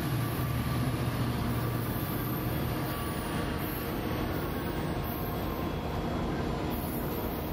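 Metrolink F40PH diesel locomotive, an EMD 16-cylinder two-stroke engine, running as the train moves off down the track, with a steady rumble of engine and wheels. The deep engine rumble eases over the first couple of seconds as it draws away.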